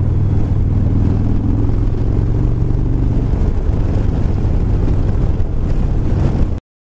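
Cruiser motorcycle engine running steadily while riding down the road, then cutting off suddenly near the end.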